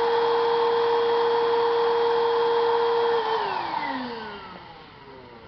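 Eureka Superlite stick vacuum running on its carpet setting with the brush roll turning, a steady whine. About three seconds in it is switched off and the motor winds down, its whine falling in pitch and fading.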